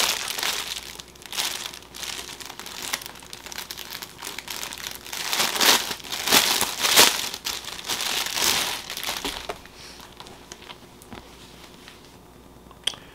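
Clear plastic packaging crinkling and rustling as it is handled, in irregular crackles, loudest about halfway through. It dies down for the last few seconds, with one sharp click near the end.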